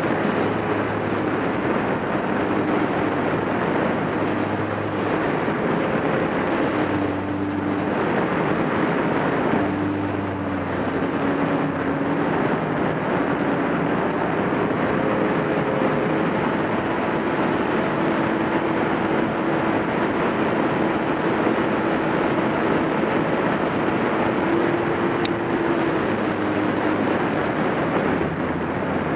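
Jet ski engine running hard near wide-open throttle, with a steady pitch that dips briefly twice in the first half as the throttle eases. Wind rushes over the microphone.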